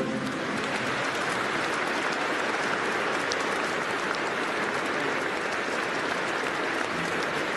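Sustained applause from a large audience, many hands clapping together in a dense, steady patter that starts abruptly.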